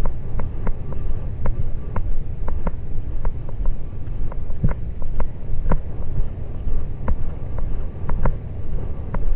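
Wind rumbling on the microphone of a helmet-mounted action camera as a racehorse gallops on a dirt track. Sharp, irregular clicks and knocks sound several times a second through the rumble.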